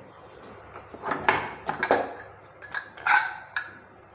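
Aluminium pressure cooker being opened: a run of short metal clanks and clinks as the weight and lid are taken off, from about a second in until near the end.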